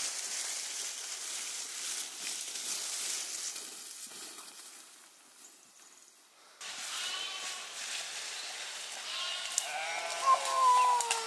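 Sheep bleating, one long wavering call that falls in pitch near the end, after a steady hiss in the first half.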